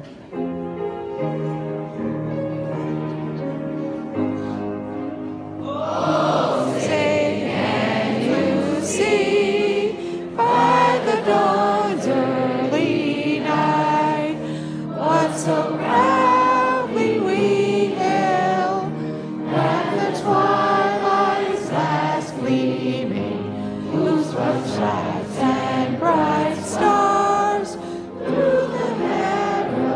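A large group singing a song together over instrumental accompaniment. The accompaniment plays held chords alone for about the first six seconds, then the voices come in.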